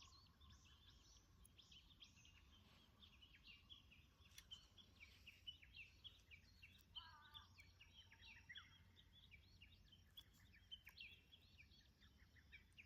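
Faint chorus of small songbirds: many short, overlapping chirps and twitters, with a brief lower call about seven seconds in.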